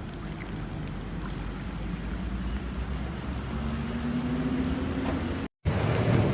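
Rushing floodwater and rain, with a faint engine hum near the middle; the sound drops out for a moment a little over five seconds in and comes back louder.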